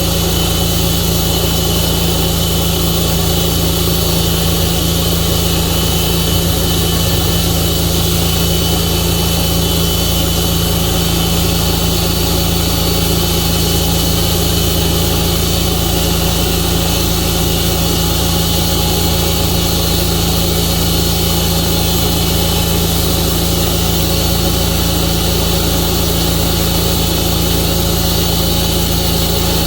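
Portable sawmill's engine running steadily at constant speed.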